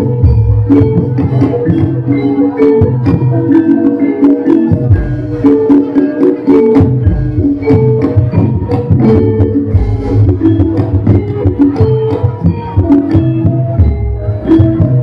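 Live Javanese gamelan music accompanying a jathilan horse dance: struck metallophones ringing out melodic notes over a brisk, dense beat of drum and percussion strikes.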